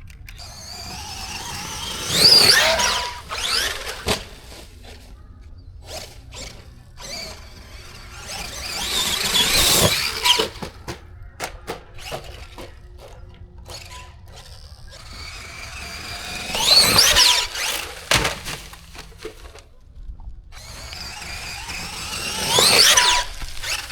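Traxxas Maxx RC monster truck's electric motor and gears whining through four full-throttle runs, the pitch climbing and falling each time, with scattered knocks between the runs.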